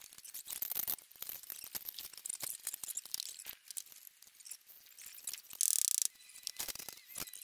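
Rapid small clicks, knocks and rattles of hand work on a timber roof frame, with a brief loud rasp about five and a half seconds in.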